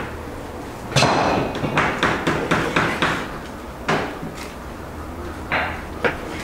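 Kitchen knife cutting raw meat on a wooden cutting board: a run of knocks of the blade on the board, about three a second, starting about a second in, then a few single knocks in the second half.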